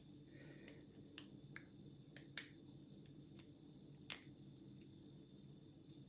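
Faint, irregular metallic clicks of a lock pick working the pins of a five-pin euro cylinder lock, about ten in all, the sharpest about four seconds in, while the picker works the stubborn back pin.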